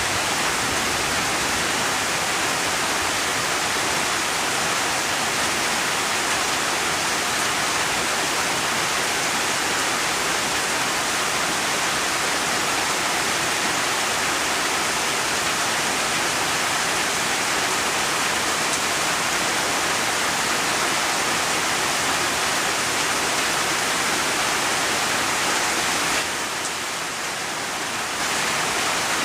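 Steady heavy rain, an even hiss of falling drops that eases briefly near the end.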